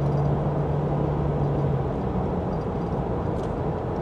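Steady road and engine noise inside a moving car's cabin at highway speed. A low hum fades about two seconds in.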